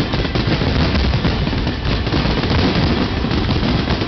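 Dense fireworks barrage: many shells bursting at once in rapid, overlapping booms and crackling.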